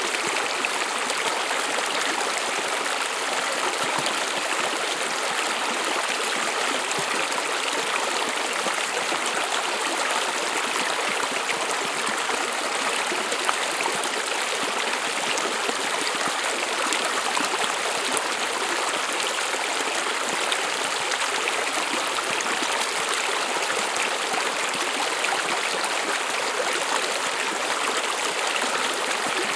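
A stream running steadily over stones, with the even splashing and trickling of flowing water.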